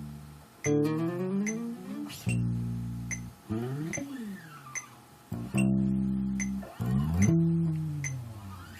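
Electric bass guitar playing held notes and sliding sound effects, the pitch swooping up and down between notes. A steady ticking click keeps time behind it.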